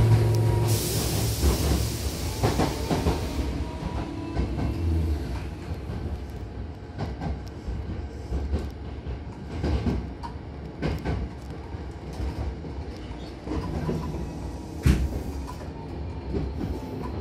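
Hankyu Kobe Line commuter train running, heard from inside the car: a steady rumble with the wheels knocking over rail joints now and then. A loud rushing hiss starts about a second in and fades after a few seconds.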